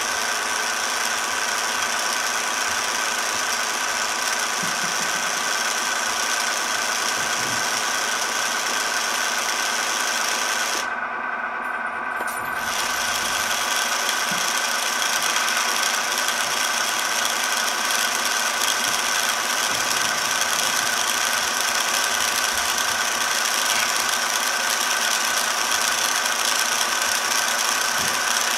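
Small electric motor and gearbox of an RC wrecker's crane running steadily, a mechanical whine with a fixed pitch. The higher part of the whine drops out briefly about eleven seconds in.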